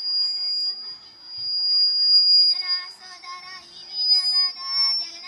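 Girls singing through a public-address system, the voices strongest from about halfway in. A steady high-pitched whine runs under them throughout.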